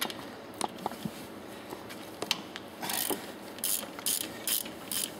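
Ratchet wrench loosening the clamp bolt on a piston pump's suction side. A few scattered clicks come first, then from about three seconds in a run of ratcheting strokes, roughly two a second, as the handle swings back and forth.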